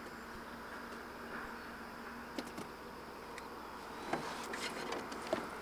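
Faint, quiet outdoor ambience with a steady insect-like hum, broken by a few light clicks and knocks, more of them near the end.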